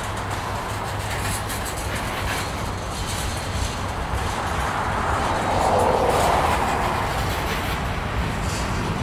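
Freight cars rolling past at speed: a steady rumble and rush of steel wheels on the rails, swelling louder for a second or two about six seconds in.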